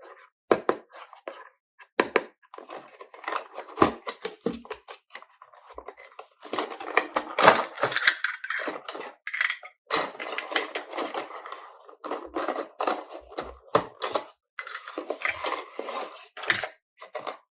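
Small toy pieces and packaging being handled: quick, irregular clicks, clinks and scrapes.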